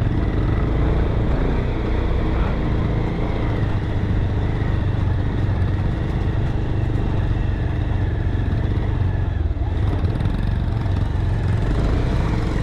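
Motorcycle engine running steadily at low road speed on a rough dirt track, heard close up from the bike carrying the camera.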